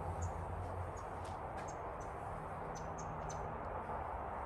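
Steady background hiss and low hum of a covered patio, with a scattering of faint, short, high-pitched chirps.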